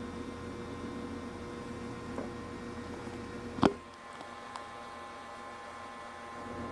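Steady electrical mains hum with one sharp click a little past halfway. The low part of the hum drops away after the click and comes back near the end.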